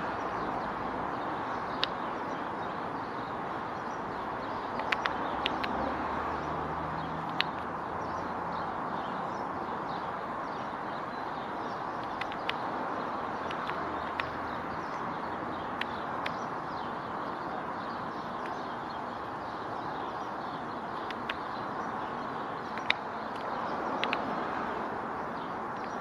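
Great spotted woodpecker's bill tapping at a cobnut wedged in tree bark: sharp, single irregular taps, a dozen or so with a few in quick succession, over a steady background hiss.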